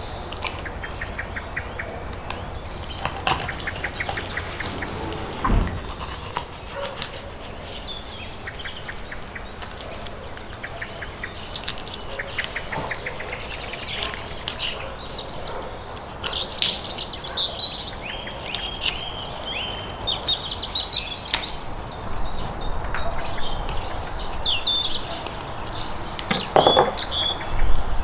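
Small birds chirping and singing, with quick trills and high chirps that grow busier in the second half, and a couple of dull knocks.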